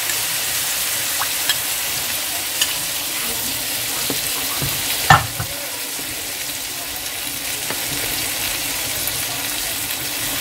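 Sweet-and-sour chicken sizzling in a frying pan as water is poured in and a wooden spatula stirs it, with a steady sizzle and a few sharp knocks of the spatula on the pan, the loudest about five seconds in.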